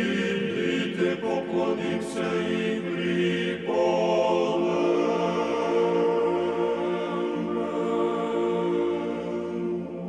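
A choir sings a slow church chant in long, held chords. The harmony shifts to a fuller, higher chord a little under four seconds in.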